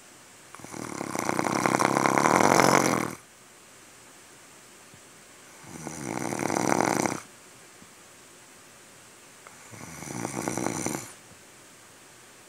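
Snoring: three snores about four seconds apart, each swelling and then stopping abruptly. The first is the longest and loudest.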